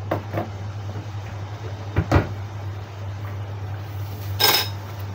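A steady low hum with kitchen knocks over it: two light clicks at the start, a heavy thump about two seconds in, and a short clatter near the end.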